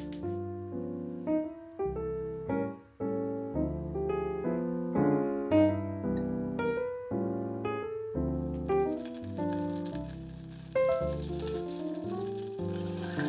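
Butter sizzling as it melts and foams in a stainless steel saucepan, starting about eight seconds in, the first step of a béchamel sauce. Background piano music plays throughout.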